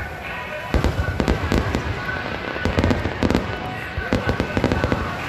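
Aerial fireworks shells bursting: three clusters of rapid sharp bangs and crackles, each lasting about a second.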